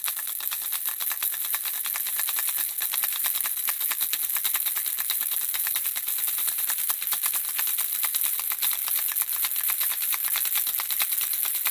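Handheld baby rattle shaken steadily, its small beads making a rapid, continuous bright clicking.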